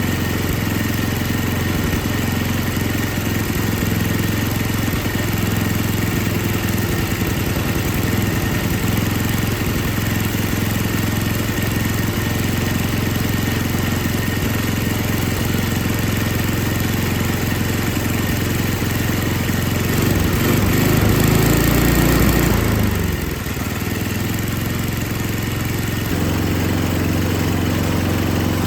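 Snowblower's Tecumseh 5 hp single-cylinder engine running steadily. Its speed changes and gets louder about two-thirds of the way in, drops back, then settles to its earlier steady run.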